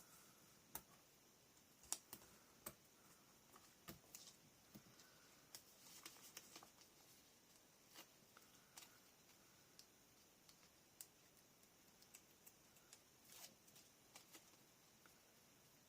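Faint, scattered clicks, taps and soft rustles of paper and small chipboard pieces being handled and pressed down onto a scrapbook page.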